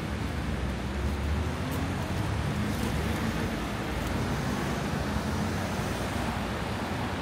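Steady city road traffic: vehicles running past with a low rumble under an even hiss.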